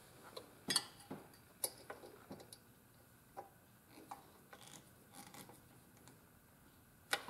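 Light, irregular metallic clicks and taps of a screwdriver and hands on a carburetor's mounting fittings as its flathead clamp screw is snugged up. The sharpest clicks come about three-quarters of a second in and near the end.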